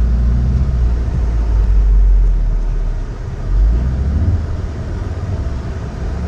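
Car engine and low road rumble heard from inside the cabin of an all-wheel-drive car driving on a snowy road, traction control switched off. The engine note surges briefly about three and a half seconds in.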